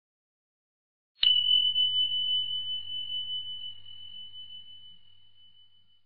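A single high bell-like ding sound effect, struck about a second in, holding one steady pitch and fading slowly over several seconds.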